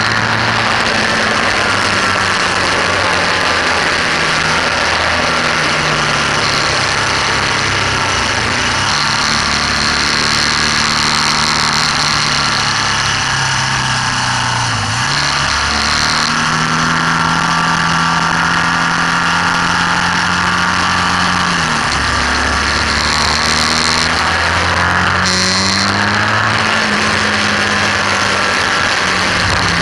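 BMW R1200S's flat-twin boxer engine running hard on track, its pitch climbing under throttle and dropping suddenly a few times as the revs fall, under a steady rush of wind noise.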